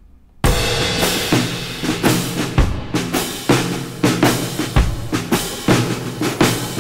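Background music with a drum kit beat, starting abruptly about half a second in.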